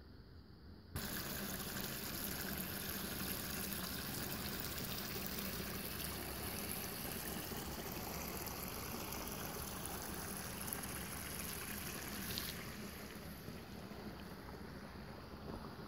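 Creek water running and trickling over rocks, a steady even rush that starts abruptly about a second in and thins a little near the end.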